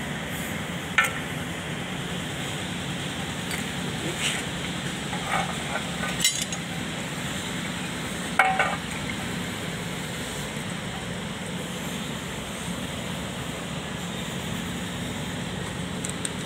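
Scattered light metal clinks and taps of hand tools and steel parts being handled during rotovator side-drive repair, about six of them a second or more apart, the loudest about eight and a half seconds in, over a steady low background hum.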